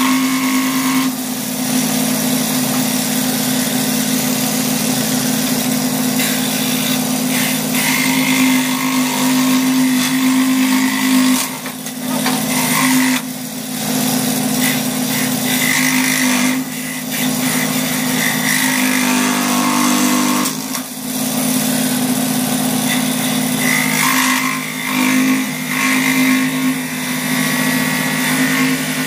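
Electric scroll saw running, its reciprocating blade cutting a block of mulberry wood with a steady hum and a rasping cut. The cutting noise drops briefly a few times as the work is eased off the blade and turned.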